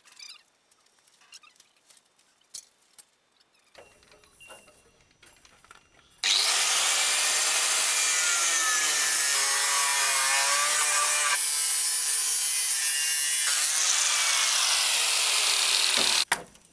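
Angle grinder cutting into a rusted steel chassis bracket. It starts abruptly about six seconds in after a few light clicks and knocks, and runs loudly for about ten seconds. Its pitch sags as the disc bites into the metal and recovers. It cuts off suddenly near the end.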